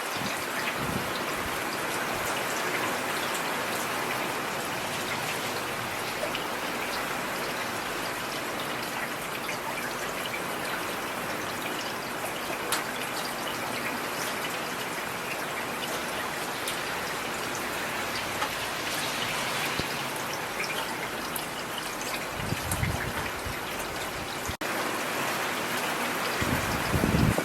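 Steady rain falling on a street, with individual drops heard distinctly. A brief low rumble comes about 22 seconds in and again near the end.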